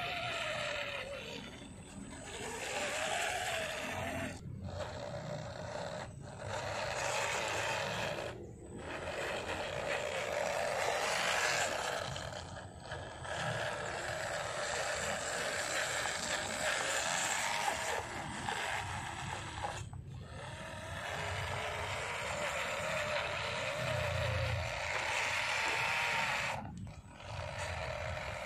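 Electric drive motor and gears of an MN99S 1:12 scale RC off-road truck whining as it drives, the pitch rising and falling with the throttle and cutting out briefly a few times as it stops and pulls away again.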